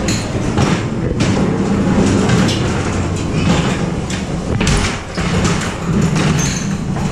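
Supercar ghost train car rumbling along its track in the dark, with a couple of sharp knocks and clatters from the wheels, about a second in and again past the middle.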